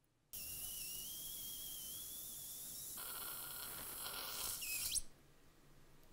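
Surgical suction aspirator hissing with a thin high whistle that slowly rises in pitch. About three seconds in it turns to a rougher hiss, gives a brief sharp glide, and cuts off suddenly about five seconds in.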